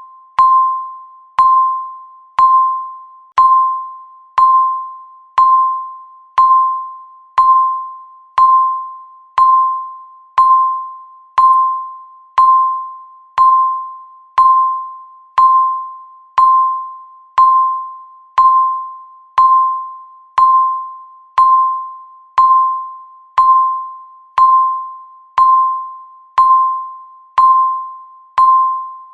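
Countdown timer beeping once every second: a single high, pure electronic tone, each beep starting sharply and dying away before the next.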